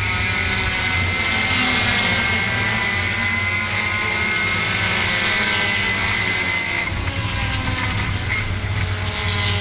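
Compact touring race car's engine running hard at racing speed, heard from inside the car, with a thin steady high whine over it and a rush of wind and road noise.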